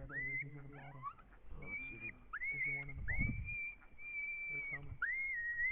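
A string of high, whimpering whines, one after another. Each sweeps up quickly and then holds its pitch for half a second to a second, like a distressed canine pup.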